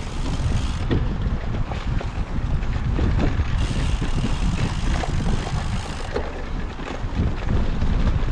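Wind rushing over the microphone and a steady low rumble, with a few faint ticks and rattles, as heard from a cyclocross bike being ridden.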